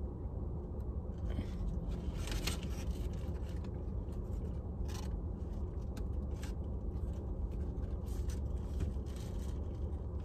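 Steady low hum of a parked car's running engine inside the cabin, with the paper wrapper of a fried chicken sandwich crinkling and rustling in short bursts as it is handled and opened.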